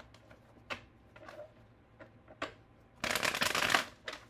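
A deck of tarot cards being shuffled by hand: a few soft taps and slides of cards, then a loud rapid flutter of cards about three seconds in that lasts about a second.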